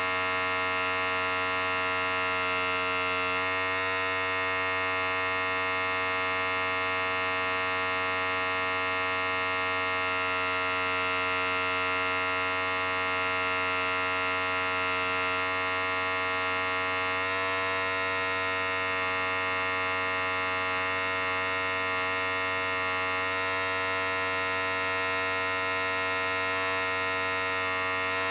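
Electric hair clipper running continuously: a steady buzz at an even level, its tone shifting slightly a few times.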